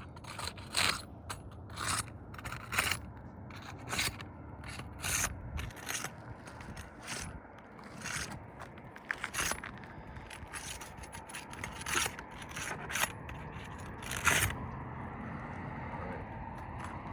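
Gritty scraping on old, granule-shedding asphalt roof shingles: a dozen or so short, sharp strokes at an uneven pace of about one a second, the loudest near the end.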